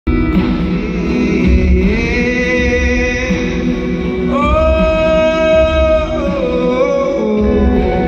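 Acoustic guitar played under a singer's voice holding long sustained notes, the longest starting about halfway through and bending down near the end.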